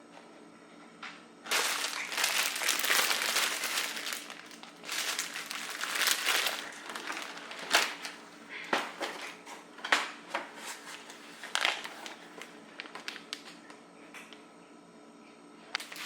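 Plastic packaging being handled, crinkling and rustling in two long bursts, followed by a series of sharp clicks and light knocks.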